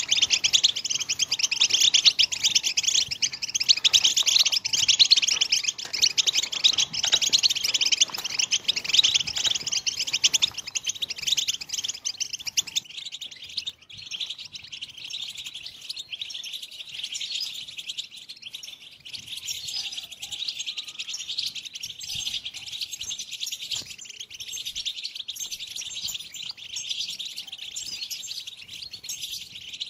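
European goldfinches twittering in a dense, fast run of chirps: the excited chatter that keepers call 'tbtba'. A little under halfway through, the lower background under the chirping drops away and the twittering carries on alone.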